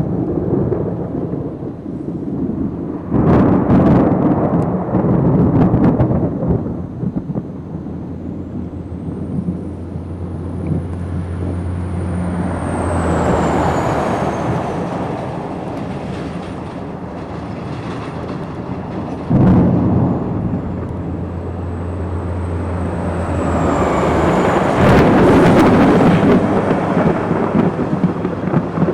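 Thunder from very close lightning strikes: sudden loud claps about three seconds in and again near twenty seconds, each rolling on into long rumbles, with another rumble swelling near the end.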